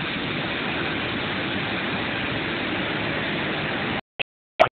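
Waterfall rushing steadily into a plunge pool. About four seconds in the sound cuts out abruptly, broken by two short, sharp digital glitch pops, the second one loud, as the phone recording breaks up.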